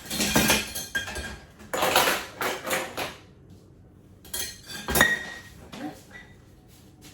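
Metal kitchen utensils clattering as they are rummaged through, with a sharp ringing clink about five seconds in.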